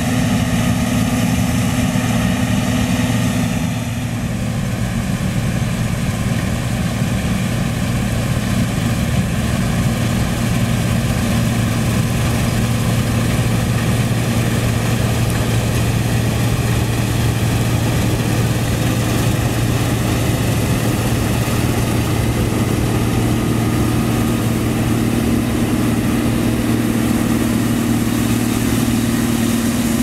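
John Deere 9860 STS combine's diesel engine and threshing machinery running steadily under load while it harvests soybeans with a flex draper header. The hum shifts slightly about four seconds in and grows stronger near the end as the combine passes close by.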